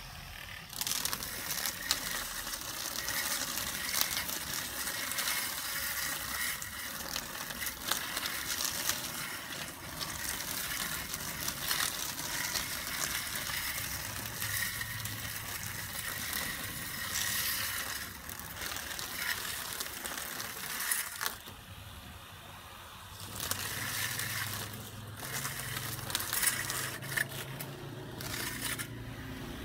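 Homemade grass trimmer, a 12 V DC motor on a PVC pipe handle spinning a small cutting head, chopping through weeds with a dense crackling, rattling noise. It eases off for a couple of seconds about two-thirds of the way through, then picks up again.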